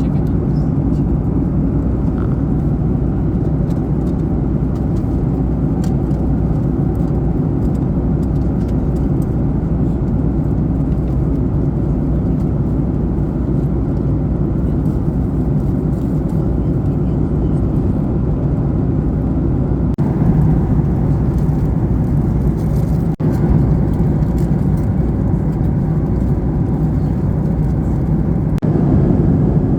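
Steady cabin noise of a Boeing 737 MAX 8 airliner in flight: an even, low rush of airflow and engines, with a brief dip a little over three-quarters of the way through.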